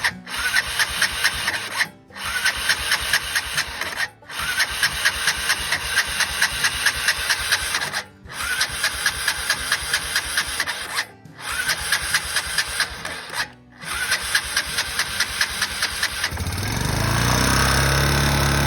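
Electric starter cranking the Honda Foreman 400's single-cylinder engine in repeated bursts of a few seconds, with a rapid rhythmic chugging, each burst cut off briefly as the start button is released and pressed again; this shows the fault where the engine sparks only after the button is let go. Near the end the cranking gives way to a steady hum.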